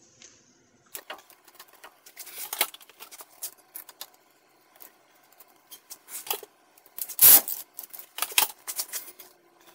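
Scattered metallic clicks and clinks of hand tools and steel suspension parts as a bolt is fitted at a car's front steering knuckle, with one loud clank about seven seconds in and another just after eight seconds.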